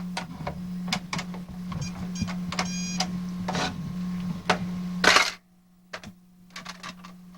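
Toy cash register play-set running with a steady motor hum and repeated sharp clicks of its buttons and parts. About five seconds in there is a brief loud burst of noise, and then the hum drops away.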